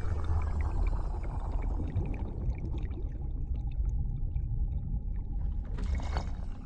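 Deep underwater earthquake rumble with churning, gurgling water. A brief rushing burst comes near the end.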